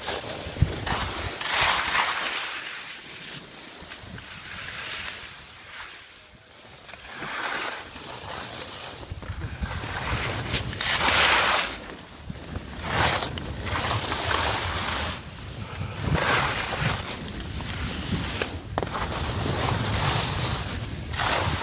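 Skis scraping and hissing over snow through a run of turns, a swell of noise every second or two, with wind rumbling on the microphone.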